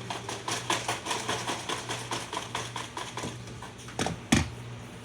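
Popcorn popping in a microwave oven: quick pops of kernels, about four or five a second and thinning out, over the oven's steady low hum. Two louder knocks come near the end.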